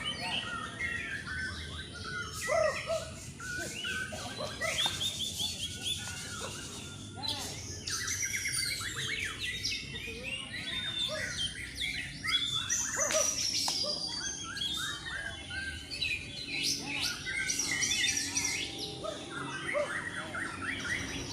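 Several white-rumped shamas (murai batu) singing at once: overlapping loud whistles, chirps and rapid trills.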